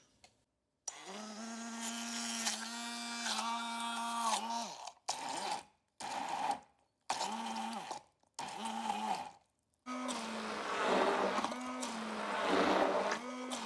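Handheld immersion (stick) blender running in several separate bursts, its motor whine steady while on and dipping in pitch as it stops, churning fried peppers, garlic, oil and vinegar into a smooth puree in a plastic beaker. The last and longest burst carries more churning noise from the liquid mix.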